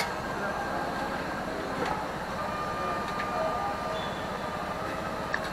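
Offal pieces sizzling on a flat steel griddle, a steady crackling hiss, with a sharp metal clack of tongs right at the start.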